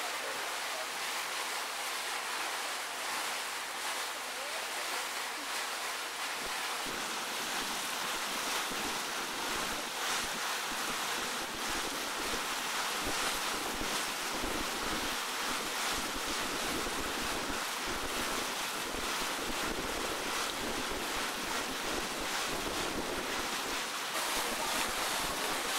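Wind blowing across the microphone over a steady wash of lake water, aboard a moving boat. About seven seconds in, the wind gusts harder and adds a low buffeting rumble.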